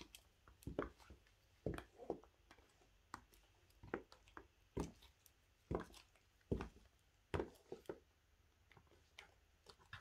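Footsteps in high-heeled shoes: a sharp heel knock roughly every second, slow and a little uneven.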